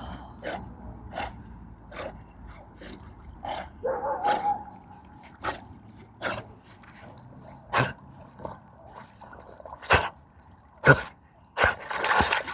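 A dog whining and yipping, with one brief pitched whine about four seconds in, among scattered short sharp knocks and clicks; the loudest come near the end.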